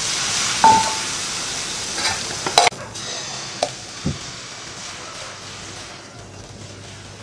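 Coriander dosa batter sizzling on a hot tawa as it is poured and spread in circles with a ladle. The hiss is strongest at first and dies down over the first few seconds, with a few light clicks of the ladle on the pan.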